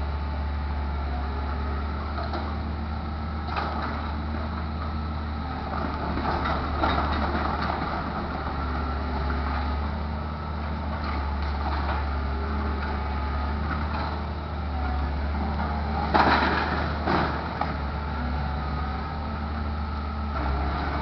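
Hydraulic excavator working a demolition rubble pile: a steady low engine drone with scattered knocks and clatter of debris, the loudest crashes about sixteen and seventeen seconds in.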